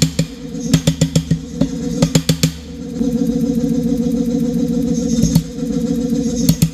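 Power hammer striking hot steel in quick bursts of blows, about seven a second, during the first two and a half seconds. After that the hammer's motor runs steadily, with a couple of single blows near the end.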